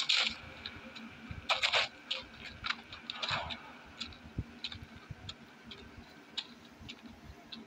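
Footsteps and gear clicks of armed soldiers creeping over rock: a scatter of soft ticks, with a few louder scuffs about one and a half and three seconds in.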